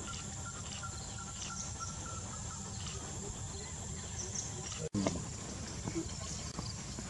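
Forest ambience: a steady high insect drone with scattered short chirps and a brief trill in the first two seconds. The sound cuts out for an instant about five seconds in.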